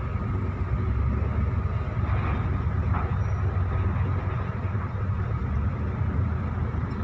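Heavy diesel truck engine running steadily, a continuous low rumble.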